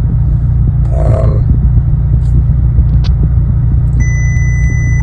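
2021 VW Tiguan's engine running with a steady low rumble, heard from inside the cabin, its exhaust fitted with a B2B Fab Tiggypipe Venturi pipe. A steady high beep sounds for about a second near the end.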